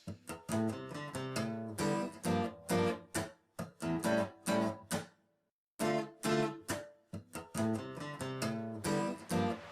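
Background music of acoustic guitar, plucked and strummed notes, with a brief complete stop a little past halfway.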